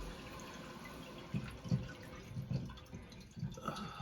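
Water trickling and dripping in a toilet tank that is not filling, the chain to the flapper being too short. From about a second and a half in come several soft low knocks as the parts in the tank are handled.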